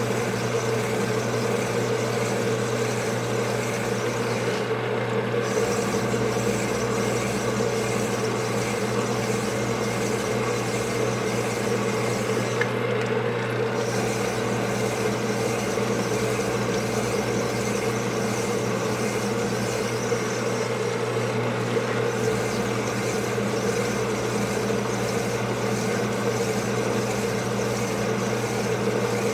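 Sunnen LBA-666 power hone running steadily, its stones abrading the bore of a Suzuki TS 125 two-stroke cylinder as the cylinder is stroked back and forth along the spinning mandrel: a constant motor hum with a faint, evenly repeating scrape. This is the finish honing that brings the bore to its final piston clearance.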